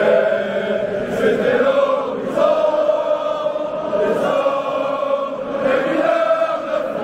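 Stadium crowd of football supporters singing a chant together, many voices holding a slow melody in unison without a break.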